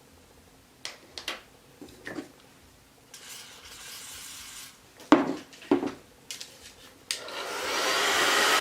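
Clicks and knocks of handling, a hiss of aerosol freeze hair spray lasting about a second and a half, two louder knocks, then a rushing noise that builds up steadily near the end.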